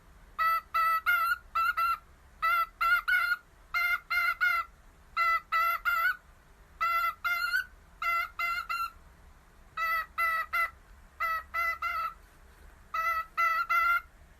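A bird calling over and over: short, clear pitched calls in quick runs of about three, a run coming roughly every second.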